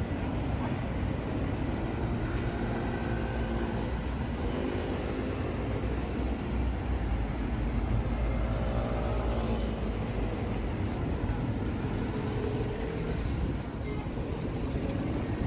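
Street ambience: a steady low rumble of traffic, with faint voices coming and going.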